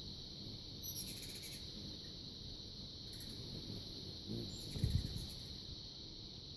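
Steady high drone of insects outdoors, with a brief high chirp about a second in and another near five seconds, the second joined by a low thump.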